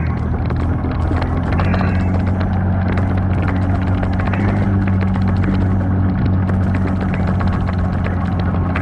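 Off-road 4x4 vehicle's engine running at a steady, even speed, a low hum, with frequent small clicks and knocks from the vehicle rattling over the trail.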